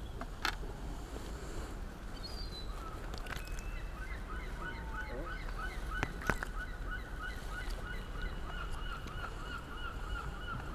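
A bird calling in a long, fast, even series of short notes, about four a second, starting about three seconds in. A few sharp knocks, the loudest about six seconds in.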